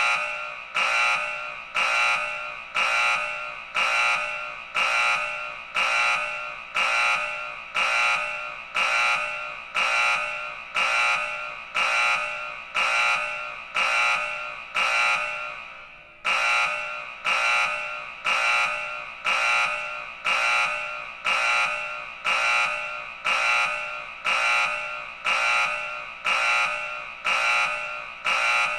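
Emergency alert alarm tone: a high-pitched electronic beeping that repeats at an even pace of about once a second, with a brief break about halfway through before it resumes.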